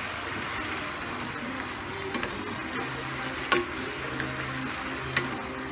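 Garlic sauce sizzling and bubbling in a frying pan, a steady hiss with two sharp clicks, one about three and a half seconds in and one near the end. Soft background music plays underneath.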